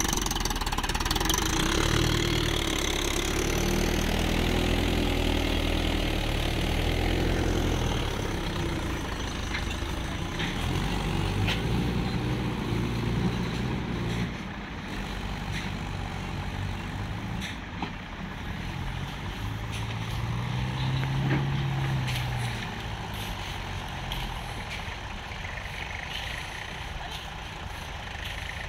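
Tractor diesel engines working under load, starting with the Mahindra Yuvo 415 DI hauling a loaded trailer through mud. The engine note shifts up and down in pitch as the throttle changes. It grows quieter about halfway through, then rises and falls once more a little later.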